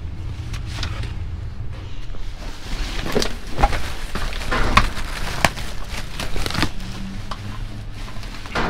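Discarded items being rummaged through and handled: a run of knocks, clatters and rustles, busiest in the middle, over a steady low rumble.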